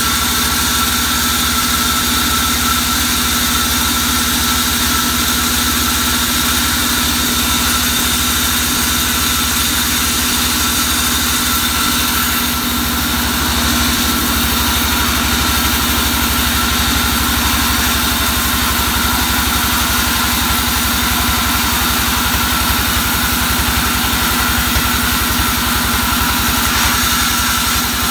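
Vertical band sawmill running steadily while a bark-covered log is fed through the blade: a constant mechanical drone with several steady tones over a hiss, holding the same level throughout.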